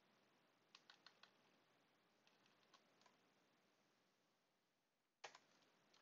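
Faint computer keyboard typing: a few short runs of keystroke clicks with near silence between them.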